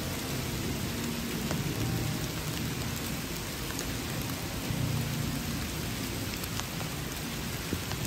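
Steady rain falling, with a low rumble of thunder underneath that swells about two seconds in and again around five seconds.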